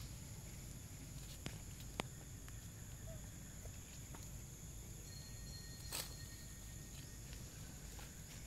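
Faint ambience with light rustling and a few sharp clicks of dry leaves and twigs as a baby monkey crawls over leaf litter and roots. The loudest clicks come about two seconds in and about six seconds in, over a steady faint high hiss.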